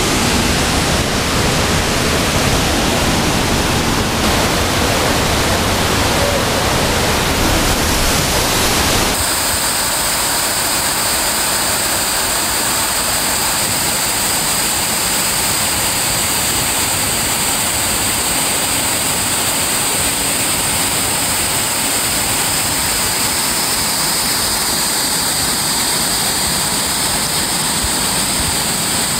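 Steady rushing of a waterfall and cascading stream water. About nine seconds in the sound shifts, and a steady high hiss sits over the rush.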